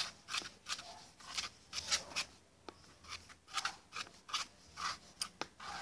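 A spoon stirring glue and shaving cream in a bowl: repeated rubbing, scraping strokes about twice a second, with a few sharp clicks.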